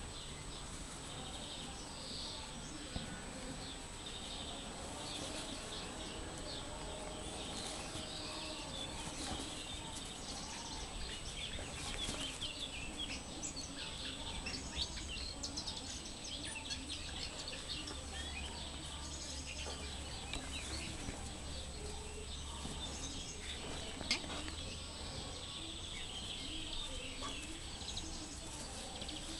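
Outdoor ambience with small birds chirping throughout in many short high calls. A low rumble joins in for several seconds past the middle, and there is one sharp click.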